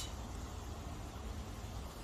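Steady background hiss with a low rumble underneath, and one short click at the very start.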